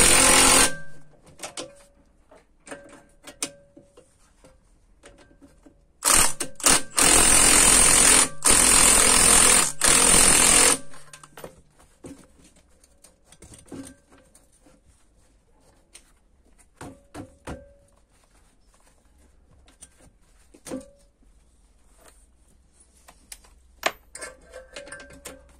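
Cordless power ratchet spinning the threaded rods of two coil-spring compressors to tighten them back down on a MacPherson strut spring, which had begun to bind. It runs briefly at the start, then in several runs of a second or two with short breaks from about 6 to 11 seconds, with light metal clinks between.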